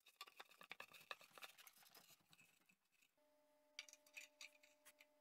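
Faint clicking and scraping of a folding rule being handled against a wooden chair leg. A faint steady hum comes in about three seconds in.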